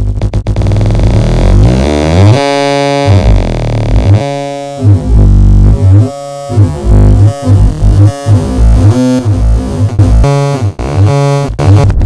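Loud electronic synthesizer tones with heavy bass, chopped into short, stuttering segments that change pitch every half second or so.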